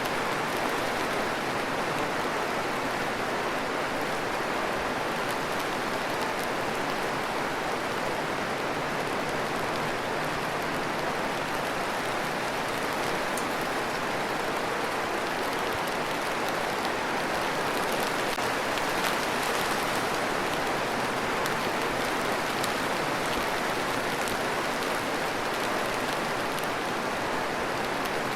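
Steady rain falling, an even hiss with faint drop ticks in it.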